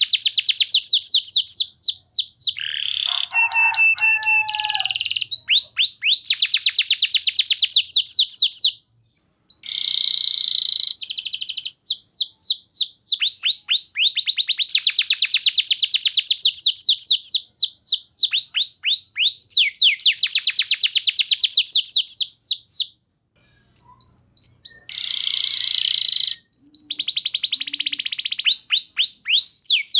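Domestic canary singing: long rolling trills of quick falling notes, about eight a second, broken by a slower phrase of held whistled tones a few seconds in and by short pauses.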